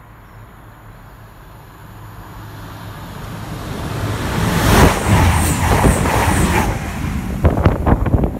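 Passenger train passing through the station at speed: a rushing noise that builds over a few seconds, peaks about halfway through and carries on loud for a couple of seconds. Near the end come irregular thumps of its slipstream buffeting the microphone.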